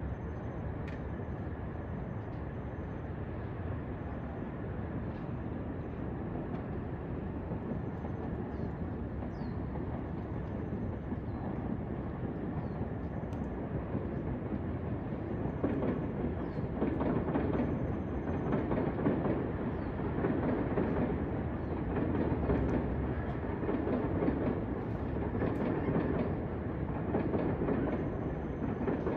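Electric commuter train running on the tracks. Its rumble grows louder about halfway through, with a rhythmic clatter of wheels over the rail joints.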